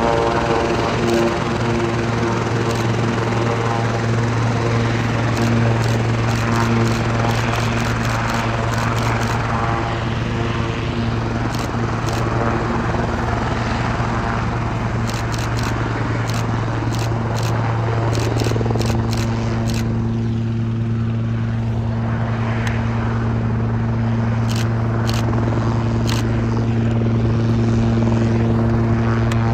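Sikorsky S-76 helicopter running on the ground with its rotors turning as it taxis, a steady low rotor hum under a set of engine tones. The tones bend in pitch about two-thirds of the way through, then hold steady again, with light clicking over the top.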